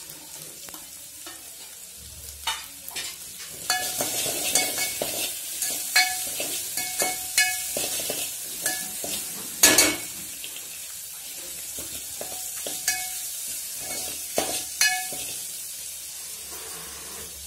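Soaked chana dal sizzling in hot oil in a metal pot, stirred with a steel spoon that scrapes and clinks against the pot with a short metallic ring. The sizzle grows louder about four seconds in, and the loudest clink comes near the middle.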